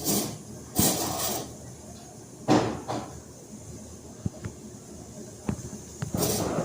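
A cat hissing in four short bursts, with a few light clicks in between.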